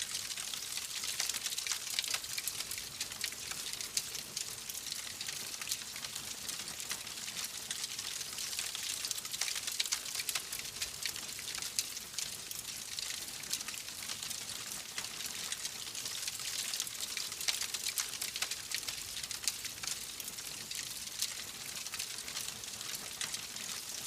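Fire in a fireplace crackling: a steady hiss with frequent small pops and snaps throughout.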